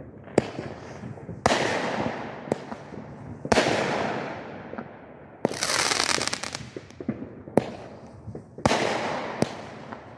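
Consumer aerial fireworks going off in quick succession. Loud bursts come about every one to two seconds, each dying away in a long echoing tail, with sharp pops between them. About halfway through there is a second of dense crackling.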